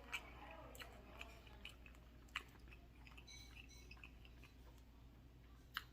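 Faint chewing with a few soft, scattered mouth clicks, otherwise near silence.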